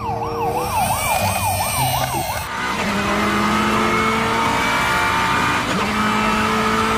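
A toy police car's battery-powered electronic siren wails rapidly up and down, about two sweeps a second. About two and a half seconds in it gives way to a steady vehicle sound: a noisy rush with a few held tones.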